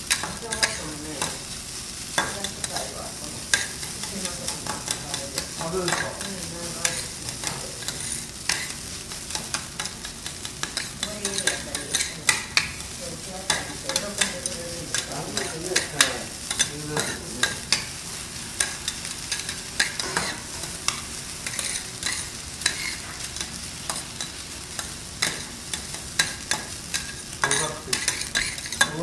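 Two metal spatulas scraping and clacking on a steel teppanyaki griddle, many quick irregular strikes, as fried rice sizzles steadily on the hot plate.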